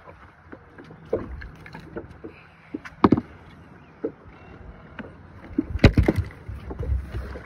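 Knocks and thumps on the deck of a fishing boat while a hooked fish is worked to the side, the loudest about three seconds in and a cluster near six seconds, over a low rumble of wind and water against the hull.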